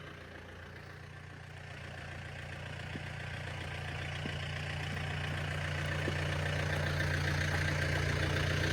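Diesel engine of a John Deere 4600 compact tractor running steadily as the tractor moves ahead, growing gradually louder.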